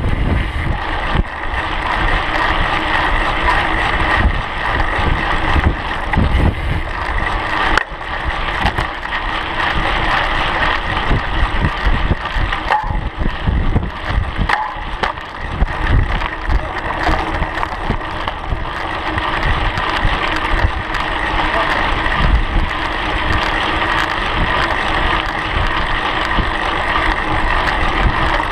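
Bicycle tyres rolling over a dirt and gravel trail at speed, making a continuous tyre noise with a steady hum. Wind buffets the microphone in irregular low gusts.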